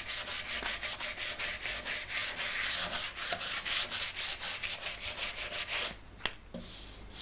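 Sandpaper rubbed quickly back and forth over the epoxy-repaired wooden mast, about five strokes a second, finishing the repair smooth. The sanding stops about six seconds in, followed by a single sharp click.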